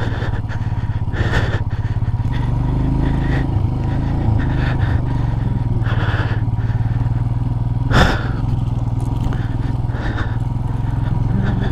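Motorcycle engine running steadily at low speed over a rough off-road track, with short bursts of gravel and suspension clatter and one sharp knock about eight seconds in.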